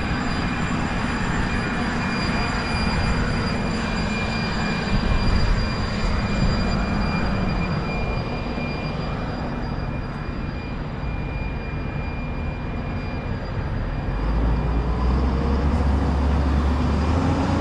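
Downtown street traffic ambience: a steady rush of road noise, with a heavier vehicle rumble swelling about fourteen seconds in.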